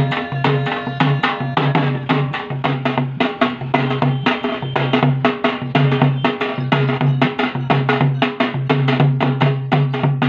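Drum music: fast, even drumbeats over a low pitched tone that pulses on and off in time with the beat.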